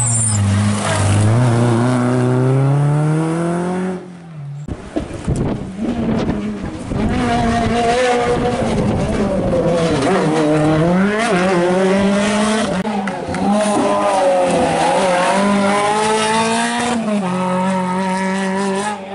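Renault Clio rally cars' four-cylinder engines revving hard on a twisty stage, the pitch climbing steadily under acceleration, then rising and falling with each gear change and corner. The sound breaks off briefly about four seconds in, with a few rough knocks before another car's engine takes over, and changes again near the end.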